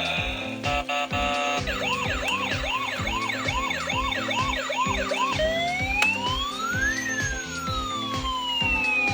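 Electronic police-siren sound over background music with a steady beat: quick up-and-down yelps, about two and a half a second, then one slow rising and falling wail.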